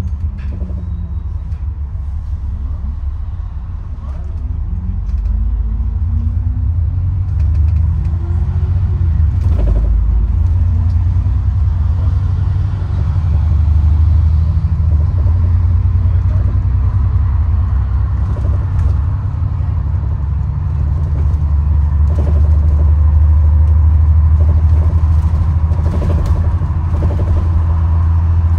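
A bus in motion, heard from inside: a steady low rumble of engine and road noise. About four seconds in, a rising whine comes in and grows louder as the bus speeds up. A few short knocks and rattles come through.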